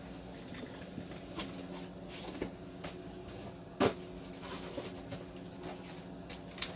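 Faint handling noise of a zip-tied cable harness going into a plastic zipper bag: small clicks and plastic rustles, with one sharper click about four seconds in, over a steady low hum.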